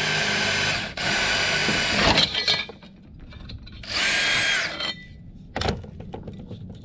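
Electric drill boring holes in three runs, each about a second long with a steady motor whine. The third run comes after a pause of over a second. There is a short knock near the end.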